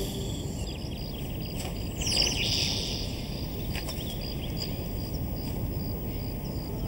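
Outdoor ambience: a steady hiss with short high chirps repeating evenly throughout, and a brief gliding bird-like chirp about two seconds in.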